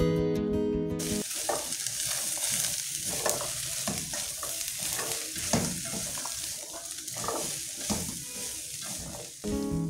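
Vegetables and egg sizzling in a hot oiled wok, stirred and scraped with a spatula in repeated strokes. Acoustic guitar music plays for about the first second and comes back just before the end.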